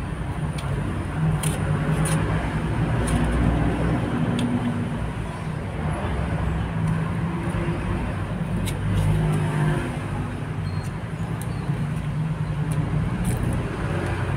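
Road traffic: vehicle engines running and passing in a continuous low rumble that rises and falls in level, with a few faint light clicks.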